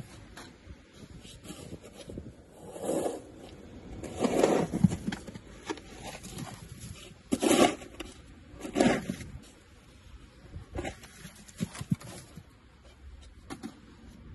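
Plastic snow shovel scraping and scooping snow in a series of strokes, the loudest about three, four and a half, seven and a half and nine seconds in, followed by a few lighter knocks of the blade.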